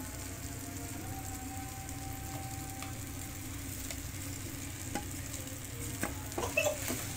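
Oil sizzling steadily in a steel kadai as soaked flattened rice is scraped into it from a steel bowl with a perforated steel ladle. A few metal clinks of the ladle against the bowl and pan come in the second half.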